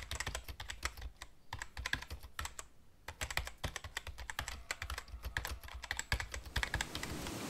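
Computer keyboard typing sound effect: rapid, irregular key clicks accompanying on-screen text being typed out, stopping just at the end.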